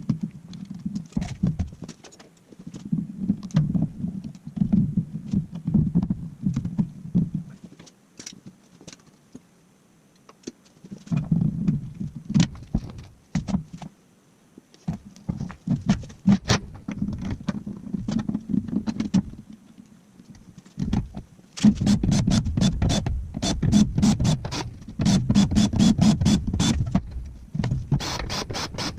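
A power tool running in bursts of a few seconds, with clicks and clatter of metal parts in between.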